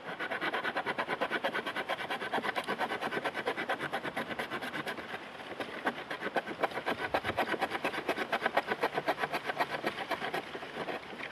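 The sawback spine of an Aitor Oso Blanco knife sawing through a branch: quick back-and-forth rasping strokes of teeth in wood, several a second, easing a little around the middle and picking up again.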